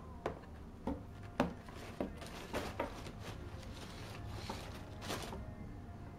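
Crumpled brown wrapping paper crackling and rustling as a cat paws and noses through it in a cardboard box: a run of sharp crinkles over the first three seconds, then softer rustling near the end.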